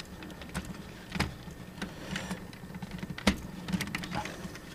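Hard plastic parts of a Dragonzord toy clicking and knocking as a piece is fitted into place by hand: a few scattered clicks, the loudest about three seconds in, over a faint steady hum.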